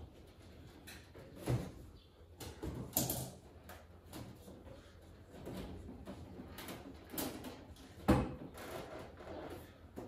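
Irregular knocking and clattering of objects being handled and set down, with the loudest knocks about a second and a half in, at about three seconds, and just after eight seconds.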